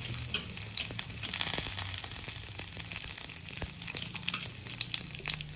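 Curry leaves sizzling in a little hot oil in a kadai as a tempering with mustard seeds and urad dal, a steady hiss dotted with many small crackles and pops.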